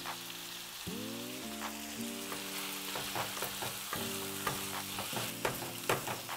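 Ground beef sizzling in a hot oiled frying pan while it is broken up and stirred with a plastic chopper, the tool scraping and clicking against the pan now and then.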